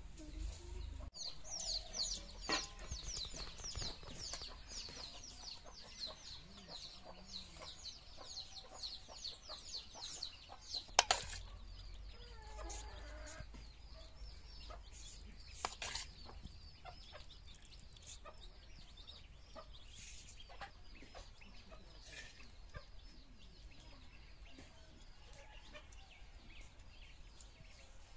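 Chickens clucking, with rapid high peeping for roughly the first ten seconds. A few sharp metallic clinks of a steel ladle on steel plates, the loudest about eleven seconds in.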